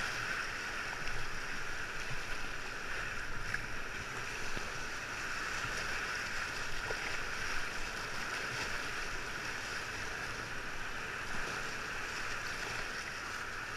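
Steady rushing of river whitewater, heard from a kayak running the rapid.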